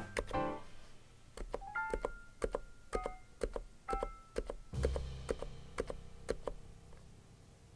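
Keystrokes on a NIZ Plum87 electro-capacitive keyboard: irregular soft clicks, a few a second, under light piano background music. A denser, louder run of keystrokes with a low thump comes about five seconds in, then the typing thins out.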